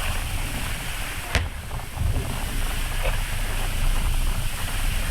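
Steady low rumble of wind on the phone microphone and the cruise boat under way, broken by a sharp firework report about a second and a half in and a fainter one about three seconds in.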